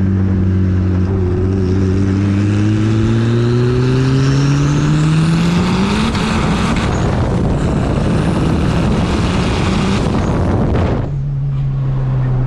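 Turbocharged D16Z6 1.6-litre four-cylinder of a 1993 Honda Civic on 20 psi, heard from inside the cabin during a full-throttle pull: the engine note climbs steadily for about six seconds, then becomes a loud rushing noise at high revs. Near the end it cuts off suddenly as the throttle is lifted and settles to a steady lower drone.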